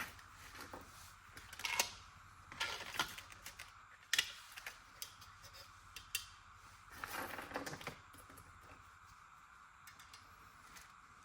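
Small metal parts clicking and clinking as nuts are fitted onto switches in a switch panel plate: sharp single clicks every second or so, a short rattle about seven seconds in, then only faint ticks.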